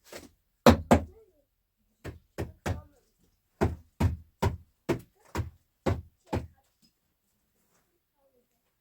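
A series of about a dozen heavy knocking blows: one light knock, two loud ones in quick succession, a group of three, then seven at a steady beat of about two a second.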